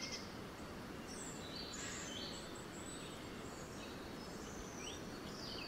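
Faint forest ambience: a steady background hiss with birds chirping now and then in short, high, sliding notes.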